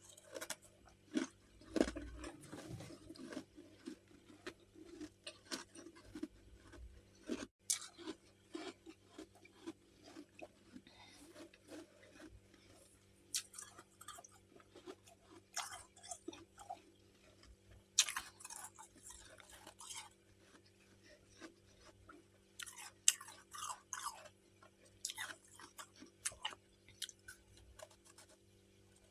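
Close-up crunching and chewing of freezer frost chunks, irregular crackling bites with bursts of louder crunches.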